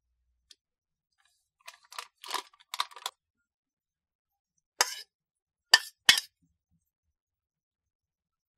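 A plastic sachet of powdered milk crinkling as it is emptied into a ceramic bowl, then three sharp clinks of a ceramic plate knocking the bowl's rim as wet young coconut strips are slid in.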